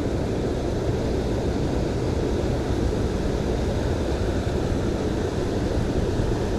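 Steady rushing of water from a waterfall, an even, unbroken noise.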